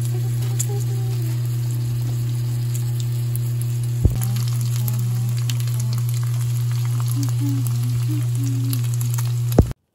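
Battered shrimp-and-eggplant fritters, then a shrimp and vegetable pancake, sizzling in oil in a frying pan, with scattered crackles of spitting oil over a steady low hum. There is a brief knock about four seconds in, and the sound cuts off suddenly just before the end.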